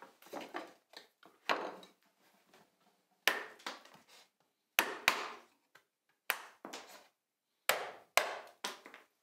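Bench chisel chopping out the waste between dovetail pins on a board end: a series of sharp, irregularly spaced knocks, with smaller crackles between them as chips break away.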